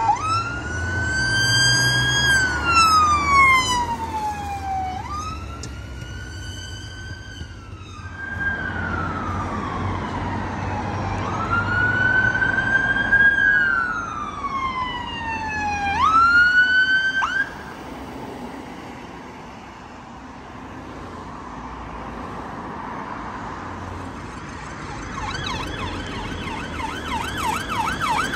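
Emergency vehicle sirens passing on a road. A wail siren repeats in cycles of a few seconds, each rising quickly and falling slowly, and cuts off about 17 seconds in, leaving traffic noise. Near the end a fast yelp siren starts up.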